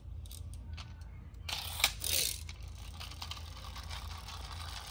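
Small plastic friction-powered toy tanker truck being pushed over a tile floor, its flywheel gears clicking, with a louder scrape and click about two seconds in, then a steady whir as it rolls off on its own.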